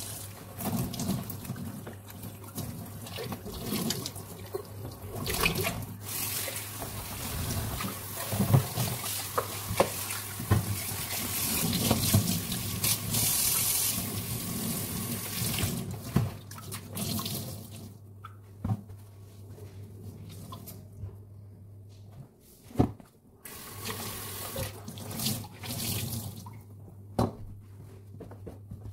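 Kitchen faucet running into a steel sink, the stream splashing over hands and a dish being rinsed. The water stops about two-thirds of the way through, leaving a few sharp knocks and clinks.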